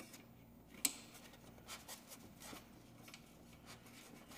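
Faint handling noises as ceiling fan parts are worked by hand: light rubbing and scraping, with one sharp click about a second in and a few softer ticks after it.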